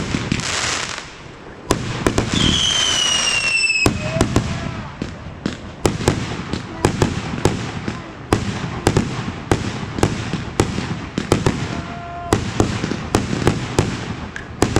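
Fireworks going off: a rapid string of sharp bangs and crackles, with a whistling firework giving one falling whistle about two seconds in.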